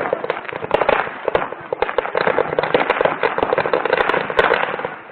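Firecrackers going off in a rapid, continuous crackle of sharp pops, many a second.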